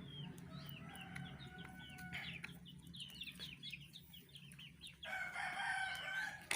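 Chickens calling: many short falling chirps, with a longer held call about five seconds in, over a steady low hum.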